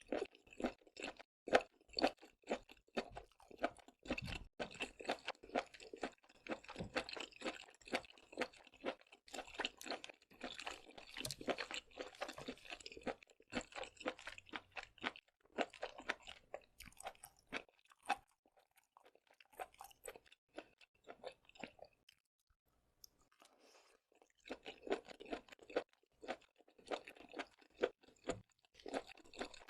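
Close-up chewing of seafood, a rapid, irregular run of wet, crunchy bites and mouth clicks, with a short pause about three-quarters of the way through before the chewing resumes.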